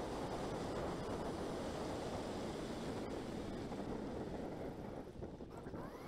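Wind buffeting a camera microphone on a moving electric scooter, a steady rush that eases about five seconds in.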